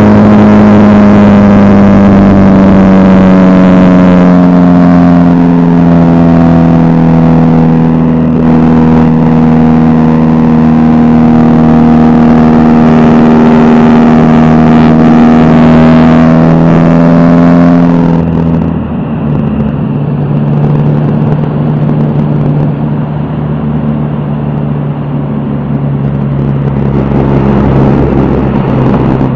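Aerobatic biplane's piston engine and propeller running at high power, a loud steady drone whose pitch sags slowly through the manoeuvres. About two-thirds of the way through it drops suddenly in loudness and settles into a lower drone that steps down once more near the end.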